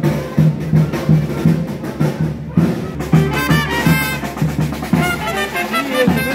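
Small marching brass band playing: saxophones and trumpet over a bass drum and snare drum keeping a steady beat, with the horn melody coming in strongly about three seconds in.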